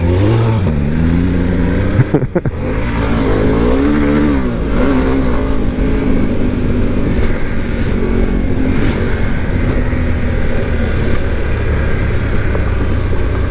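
Harley-Davidson Pan America's Revolution Max 1250 V-twin running under way on a gravel road, its pitch rising and falling as the throttle is opened and closed, over steady wind noise on the microphone. A short knock about two seconds in.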